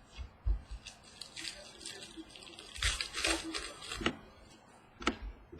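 Football trading cards being handled and sorted by hand: scattered light clicks and taps, with a rustling slide of card against card near the middle.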